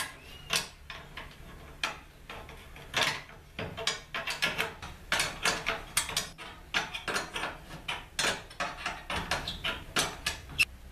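Socket ratchet wrench clicking in short, irregular runs of strokes as nuts are run down on the bolts holding new wooden wheelbarrow handles.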